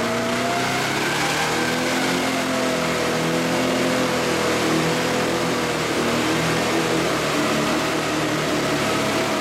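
Modified Jeep rock crawler's engine held at high revs under heavy load as it climbs a steep rock ledge with its tyres spinning. The pitch wavers a little and the sound cuts off suddenly at the end.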